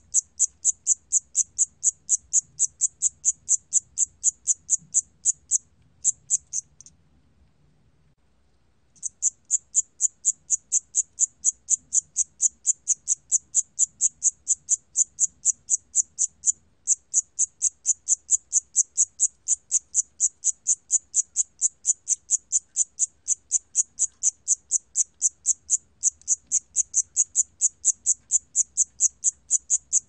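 Siamese cricket calling at 28 °C: a fast, even train of short, high chirps, about four a second, broken once by a pause of about two seconds near a quarter of the way in.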